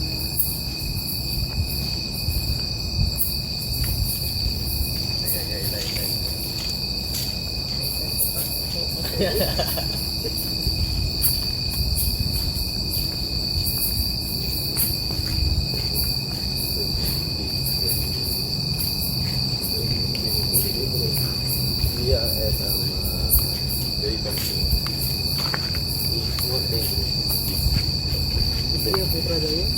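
Night chorus of crickets: a continuous, steady high-pitched trill, with a low rumble underneath.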